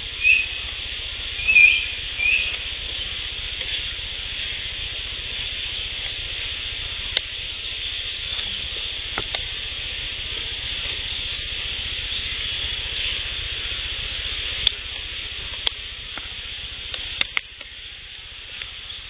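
Field recording with three short, high chirps in the first couple of seconds over a steady high hiss, followed by a few faint, sharp clicks.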